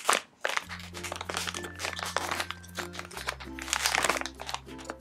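Crinkling of a plastic squishy-toy package being handled, in irregular rustles. Background music with a steady bass line starts about a second in.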